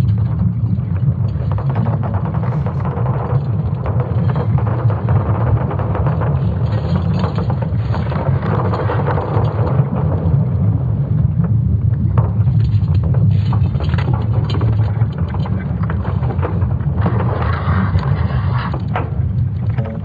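Sonification of Earth's magnetic field made from ESA Swarm satellite measurements: a steady deep rumble with a hissing, crackling layer above it. A few sharp clicks come in the second half, and a brief swell of brighter noise rises near the end.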